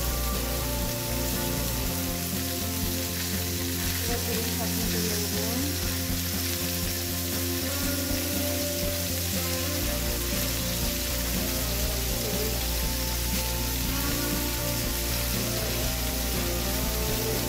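Cauliflower florets and potato pieces sizzling in hot oil in a wide metal karai, a steady frying hiss.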